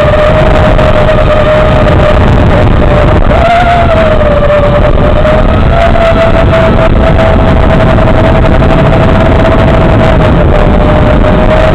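FPV quadcopter's motors whining steadily in flight under a loud, dense rushing hiss. The pitch rises briefly about three and a half seconds in and shifts slightly again about six seconds in, as the throttle changes.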